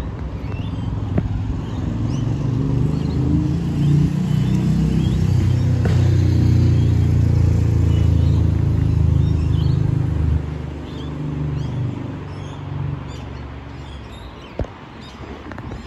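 Adelaide Metro Flexity Classic light-rail tram giving off a low electric hum and drone at the platform. The hum swells over the first few seconds and drops away sharply about ten seconds in. Birds chirp faintly throughout.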